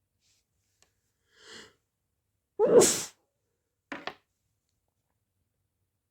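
One loud, wet human sneeze about two and a half seconds in. A faint breath in comes before it, and two short, quick sounds follow just after.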